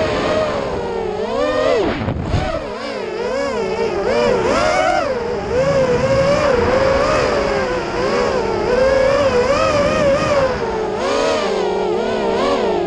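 FPV racing quadcopter's brushless motors whining, the pitch rising and falling constantly with throttle changes through the turns; about two seconds in the pitch drops sharply and climbs back as the throttle is cut and reapplied.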